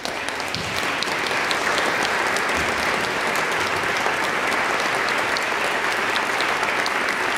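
Concert-hall audience applauding, building up over the first second and then holding steady as a dense wash of clapping.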